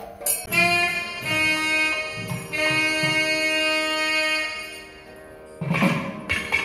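Nadaswaram, a South Indian double-reed pipe, playing long held notes that step from one pitch to the next. Near the end, drum strokes come in.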